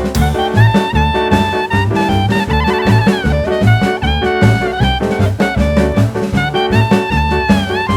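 Background music: an upbeat jazz tune with a steady bass and drum beat and a brass lead line with sliding notes.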